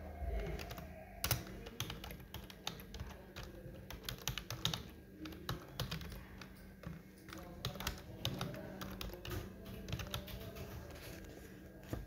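Computer keyboard being typed on: a run of quick, uneven key clicks.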